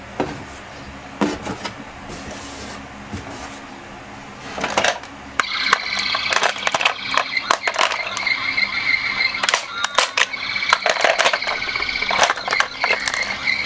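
Small toy minicars clicking and clattering as they are handled and run down a slope. About five seconds in, a high, wavering electronic ambulance siren starts and keeps sounding over the clatter.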